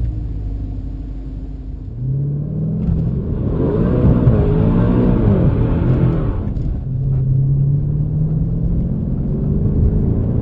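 Maserati Quattroporte's 3.8-litre twin-turbo V8 accelerating under kickdown. Its revs climb about two seconds in and swing up and down through the middle, then hold steady near the end.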